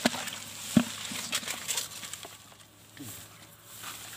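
Live snakeheads knocking and slapping against a plastic bucket as a hand places a fish among them: two sharp knocks, one at the start and one just under a second in, then light scraping and rustling.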